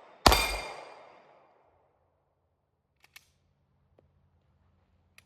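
A single 9mm pistol shot from a PSA Dagger, a Glock-style handgun with a compensator. Its report and a bright metallic ring die away over about a second, followed by a few faint clicks.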